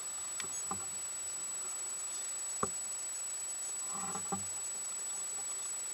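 Steady hiss with a thin high-pitched whine, broken by four short clicks and knocks as hands work a hook out of a largemouth bass's mouth; the sharpest click comes a little before the middle.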